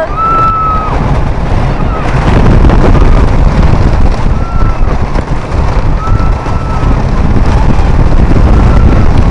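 Wind rushing over the microphone and the low rumble of a wooden roller coaster train running on its track at speed. Riders let out several held screams over it.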